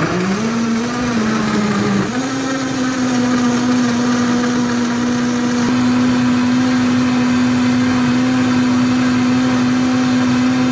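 Vitamix blender running, its motor blending a smoothie of frozen fruit, kale, seeds and water. Its hum climbs in pitch over the first two seconds as the motor comes up to speed, then holds a steady whine.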